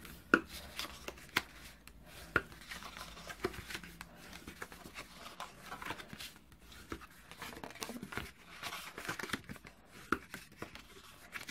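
Bone folder burnishing the score lines of cardstock: soft scraping and rustling of the card as it is creased and handled, with irregular light taps and clicks.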